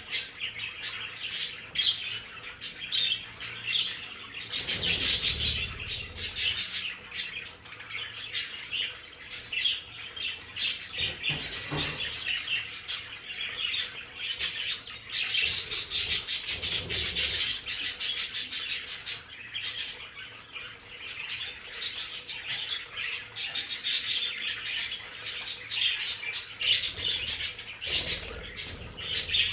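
A flock of budgerigars chirping and warbling continuously in a rapid stream of short high chirps, with a few low flutters now and then.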